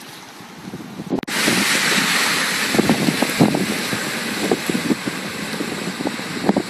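Wind buffeting the microphone, then from about a second in a small hatchback driving through floodwater across the road, its wheels throwing up a loud, rushing spray that slowly eases as it goes away.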